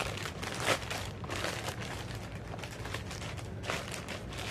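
Plastic bag crinkling and rustling in irregular bursts as it is handled and opened.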